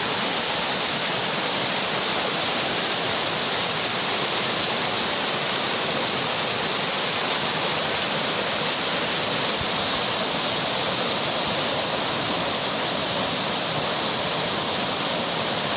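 Fast-flowing floodwater rushing steadily, a dense unbroken hiss of water with no let-up: a flash flood's runoff after heavy storm rain.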